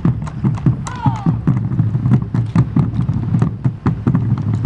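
Several bombos legüeros, Argentine wooden-shelled drums with hide heads, beaten together with sticks in a steady, driving rhythm of strikes.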